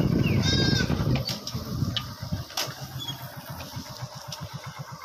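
Motorcycle engine running, then easing off and dropping to idle a little over a second in. It then idles with a regular putter of about eight beats a second. A short high chirp sounds about half a second in, and a few sharp clicks follow.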